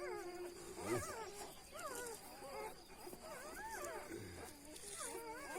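Puppies whining and whimpering: many short, high, rising-and-falling cries, several overlapping at once.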